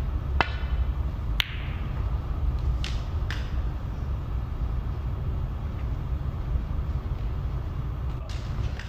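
Snooker shot being played: a few short, sharp clicks of cue and balls striking, the sharpest about a second and a half in, over a steady low hum.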